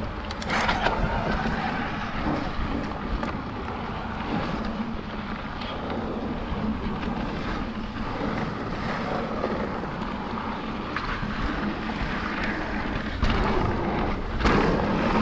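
Wind rushing over the camera microphone and tyres rolling on a dirt trail as a mountain bike is ridden, with a few brief clatters from the bike over bumps.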